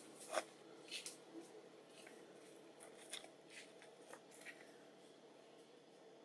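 Near silence with a faint steady hum and a handful of short soft clicks, the loudest about half a second in.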